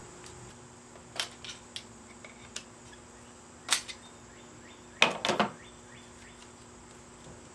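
Sharp metallic clicks and clanks of hand tools working on a steel bicycle rear rack as its hinge section and spring are taken off. They come scattered, with the loudest, a quick run of three, about five seconds in.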